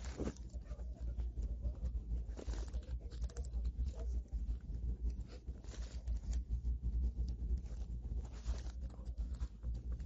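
Clear plastic sandwich wrapper crinkling as it is handled, with a few short rustles and small clicks of eating and chewing, over a steady low hum.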